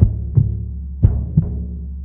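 Heartbeat sound, deep and drum-like: two lub-dub double beats about a second apart, over a low steady hum.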